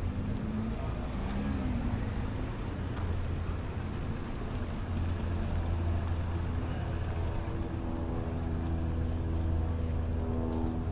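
City street traffic: a steady low engine rumble, with the pitched hum of a nearby vehicle's engine growing stronger about halfway through.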